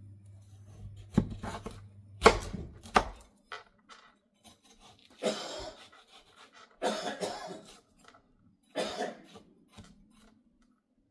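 Large kitchen knife cutting a watermelon on a plastic cutting board: a few sharp knocks of the blade on the board in the first three seconds, then three longer crunching cuts through the rind.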